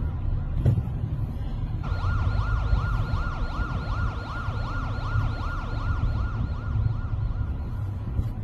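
Emergency vehicle siren in fast yelp mode, starting suddenly about two seconds in and sweeping up and down in pitch about twice a second, over a steady low rumble.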